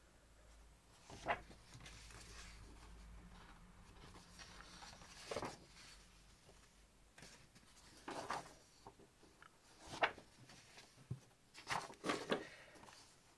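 Sheets of thin patterned scrapbooking paper being handled, lifted and laid down, giving about half a dozen short soft paper rustles, several close together near the end.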